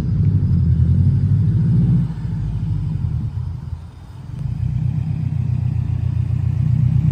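Subaru WRX's flat-four engine running with a deep exhaust rumble as the car drives across grass toward the camera; the rumble eases about two seconds in, dips, and builds again about four seconds in.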